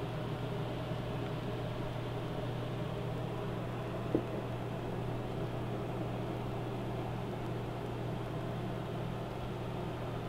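Steady low hum with a light hiss: room tone, broken once about four seconds in by a brief short blip.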